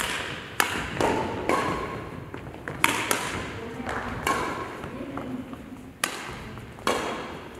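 Badminton rally: sharp racket strikes on a shuttlecock, roughly one a second at irregular spacing, each echoing in a sports hall.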